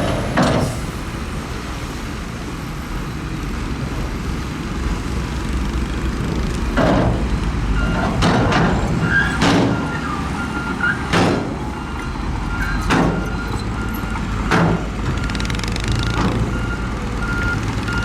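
Heavy diesel construction machinery running with a steady low rumble and repeated sharp clanks every second or two. A reversing alarm starts beeping about halfway through.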